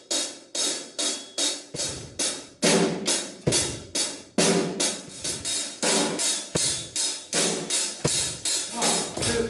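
A drum kit played in a steady beat: cymbal strokes about three a second, with heavier drum hits among them.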